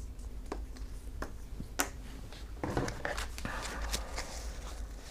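Playing cards being handled on a tabletop: a few light clicks and taps, the sharpest a little under two seconds in, over a faint steady low hum.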